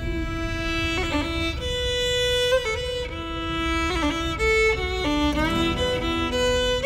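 Instrumental break in an Irish ballad: a melody of held notes with short slides between them over a steady low accompaniment.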